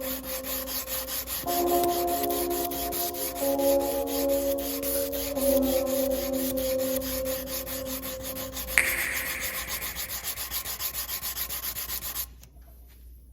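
Hand sanding of an unhardened steel knife blade: sandpaper on a sanding block rubbed back and forth in quick, even strokes, several a second. There is a sharp tick about nine seconds in, and the strokes stop about a second before the end.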